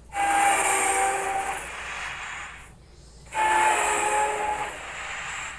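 Two long horn blasts in the manner of a train horn, each about two and a half seconds, several pitches sounding together over a hissy rush. Each starts loud and fades toward its end, with a short gap between them.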